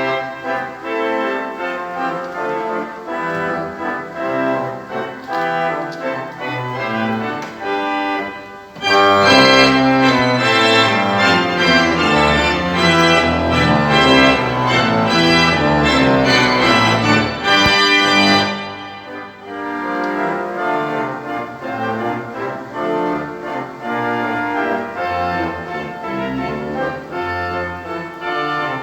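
Pipe organ playing a concert piece in sustained chords. About nine seconds in it swells to a much louder, fuller passage, then drops back to a softer registration about nine seconds later.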